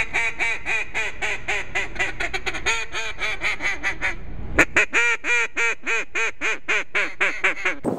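A duck call being blown in a fast run of short quacks, about four or five a second. There is a brief pause a little past the middle, then a second run.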